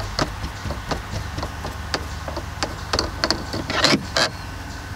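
Gear shift knob of a 2010 Mazda CX-7 being unscrewed by hand from the shifter's threaded shaft: irregular light clicks and ticks as it turns, with two louder rattling clicks about four seconds in as it comes off the shaft.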